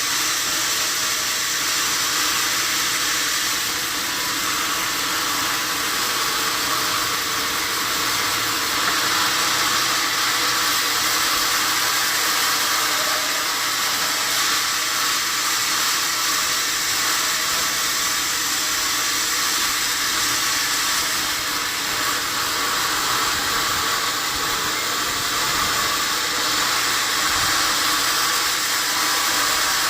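Sawmill saw running with a steady, even hiss that does not change.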